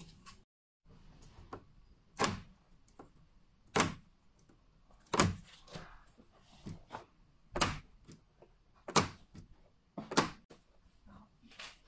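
Magnetic fly screen frame being pulled open and snapping back against the window frame's magnetic strip: about seven sharp clacks, roughly one every second and a half.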